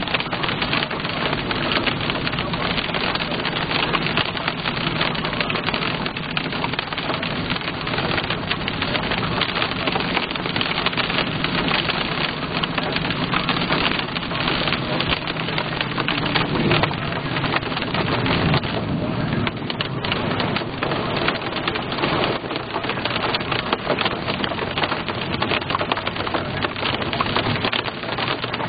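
Heavy rain pelting a car's roof and windshield, a dense, steady crackle of drops heard from inside the moving car, with a low steady hum of the car beneath it.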